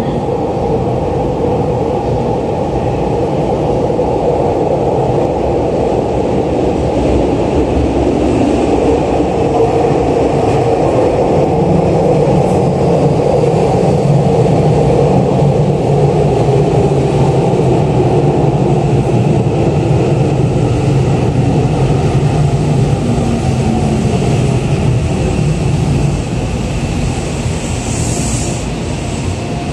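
Tokyu electric commuter train pulling into an underground station platform: a heavy rolling rumble that builds and then eases as it brakes, with a motor whine falling in pitch as it slows. A short high hiss comes near the end as it comes to a stop.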